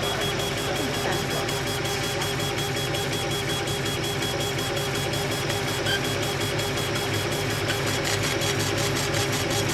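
Laser engraving machine raster-engraving a rubber stamp sheet: the head shuttles back and forth with a short click about four or five times a second, over a steady machine hum.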